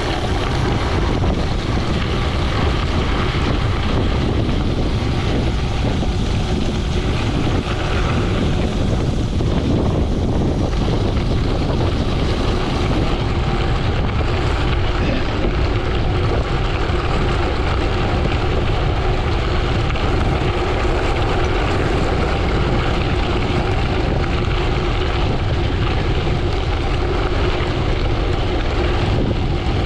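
Wind rushing over the microphone and gravel bike tyres rumbling on a loose gravel road during a fast descent, a loud, steady noise heaviest in the low end.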